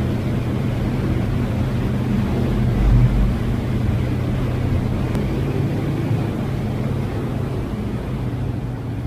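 ATV engine running steadily while riding, a low rumble with a brief surge about three seconds in.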